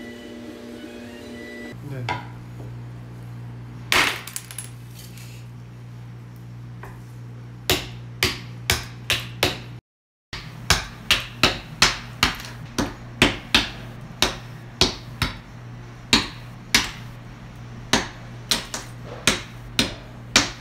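A slab of set dalgona honeycomb toffee being struck and cracked into chunks: a few sharp knocks early, then a run of sharp cracking knocks about two a second from about eight seconds in, over a steady low hum.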